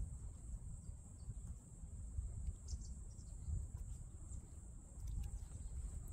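Insects trilling steadily on one high pitch over a low, uneven rumble, with a few faint clicks.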